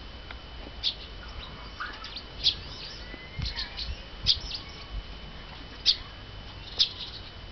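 Small birds chirping: short, sharp, high notes every second or two, with a faint steady high tone underneath.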